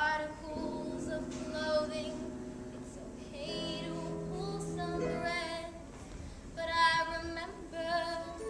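A young female voice singing a show tune with vibrato over instrumental accompaniment of held chords. The voice comes in with two sung phrases, the second near the end.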